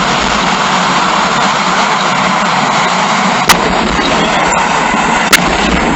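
Two sharp firework reports, one about three and a half seconds in and another almost two seconds later, over a steady loud hiss of crowd and outdoor noise picked up by a feature phone's microphone.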